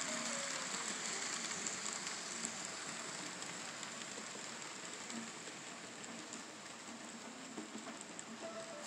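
N scale model train, an FL9 locomotive with passenger cars, running along the layout track: a steady hiss and rumble of small wheels and motor that fades gradually as the train moves away.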